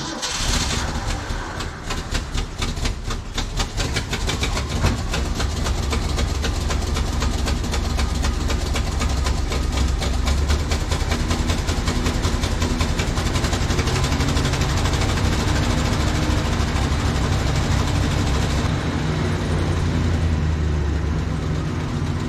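Ford medium-duty crane truck's engine running at idle, a loud, steady rumble with a rapid, even knock.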